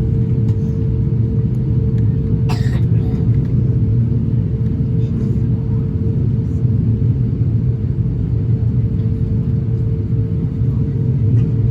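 Airbus A350-1000 cabin noise on the ground after landing: a steady low rumble with a constant hum. A brief sharp clatter about two and a half seconds in.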